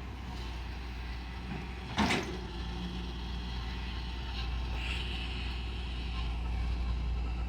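Heavy construction machinery's diesel engine running with a steady low rumble, and a brief sharp noise about two seconds in.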